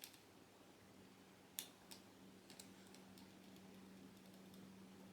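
Near silence broken by a few faint clicks of the alarm clock's push buttons being pressed, the clearest about one and a half seconds in, over a faint steady low hum.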